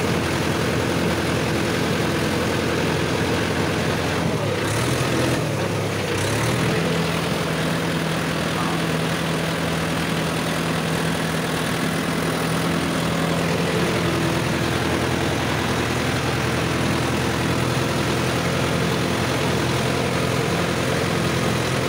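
Mahindra Yuvo 575 DI 4WD tractor's four-cylinder diesel engine running, heard from the driver's seat. The engine speed dips about four seconds in, then picks back up to a higher steady pitch about two seconds later.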